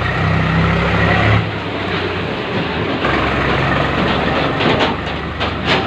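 A motor vehicle engine running steadily with a low hum, and a few sharp knocks near the end as a knife strikes a turkey carcass on a wooden chopping block.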